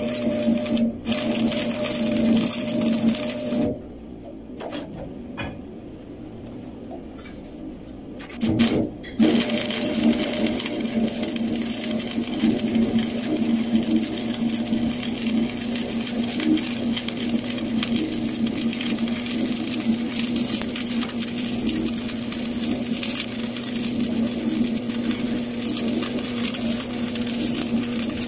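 Electric arc welding on steel pipe: the arc crackles and buzzes steadily over a low hum. About four seconds in it drops away to a quieter patch. It comes back with a brief loud burst about eight and a half seconds in and then runs steadily again.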